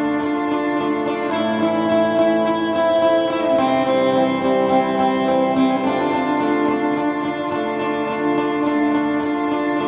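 Background music led by guitar, slow sustained chords that change every second or two.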